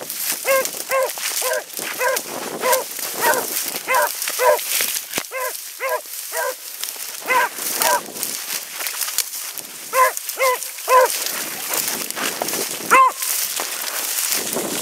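A field-trial beagle giving tongue on a hare or rabbit line: short, sharp barks at about two a second, in runs broken by brief pauses, with one louder bark a couple of seconds before the end.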